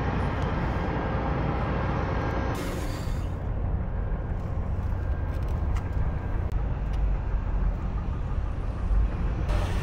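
Steady low rumble of outdoor urban and industrial ambience, with no distinct events. The hiss above it changes about three seconds in.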